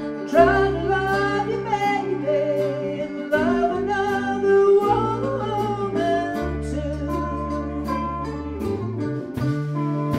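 Live blues band playing: a voice singing over electric guitar, bass guitar and a steady drum beat.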